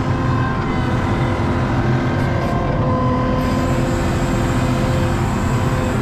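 An ASV RT-40 compact track loader's diesel engine runs steadily, heard from inside the cab, with a steady whine over the engine note.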